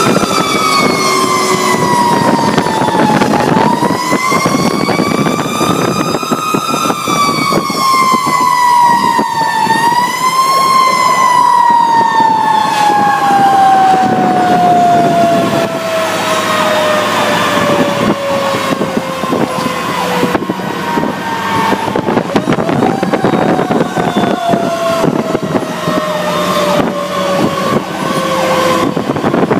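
Fire truck siren wailing as the 2008 Pierce Arrow XT aerial ladder truck responds to an emergency, heard from inside the cab over its engine and road noise. The pitch rises and falls unevenly: quick swings at first, then long, slow falls lasting several seconds, rising again twice.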